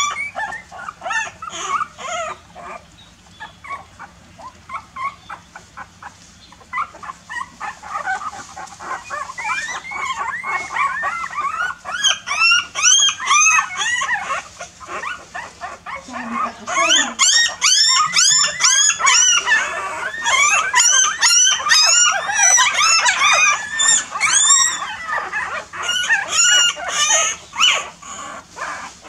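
A litter of young puppies whimpering and squealing, many at once, in short high cries that each rise and fall in pitch. The crying is scattered at first and becomes a loud, continuous chorus about halfway through. These are the cries of hungry puppies whose mother is not letting them nurse.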